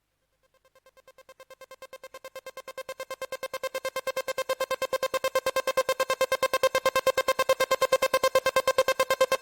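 Electronic background music: a single synth note pulsing rapidly and evenly, fading in from silence and growing louder.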